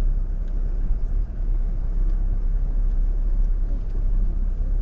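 Four-wheel drive vehicle driving slowly over a rough track: a steady low rumble of engine and tyres.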